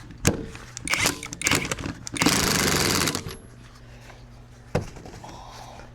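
Impact wrench run on the nut of an alternator pulley: a few clicks and short stuttering bursts, then about a second of continuous hammering as it tightens the nut, followed by a single knock near the end.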